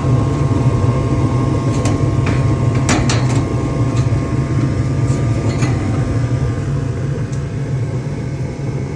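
Rheem gas furnace running with its newly replaced inducer blower motor, a steady low hum with a faint whine above it. A few light knocks sound about two to three seconds in and again midway.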